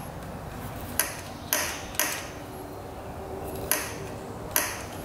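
Five sharp metallic knocks, irregularly spaced, from the engine of a 1998 Kawasaki KX125 two-stroke, a knock that the owner doesn't think should be there.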